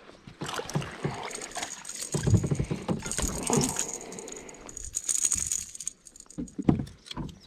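A small bass being swung aboard a kayak and flopping on the plastic deck: a run of clicks and rattles from the hooked lure and tackle, with heavier thumps as the fish slaps the deck.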